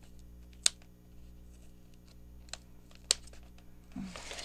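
Two sharp clicks about two and a half seconds apart, with a fainter one between, from hand work on a journal's paper signature, over a steady low hum.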